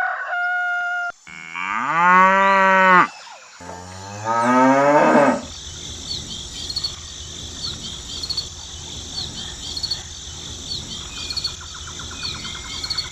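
A short steady tone, then two long cow moos, each rising in pitch, holding and falling away. After them comes a steady rural background of insects chirping in a regular high pulse.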